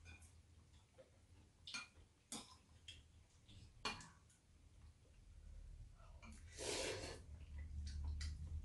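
Quiet eating of ramyeon: a few light clicks of chopsticks and spoon against bowls, then a longer noisy slurp of noodles about two-thirds of the way in.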